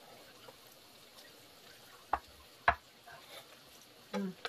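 Metal kitchen tongs clicking twice against a nonstick frying pan, about half a second apart, as pan-fried gyoza are picked up.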